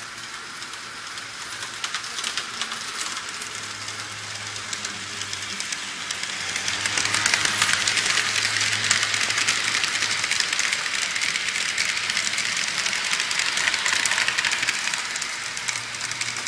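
Model trains running on a layout: wheels clattering with fast metallic clicks over the track, above a low steady hum. The clatter grows louder about six seconds in as a train passes close by, and stays loud until near the end.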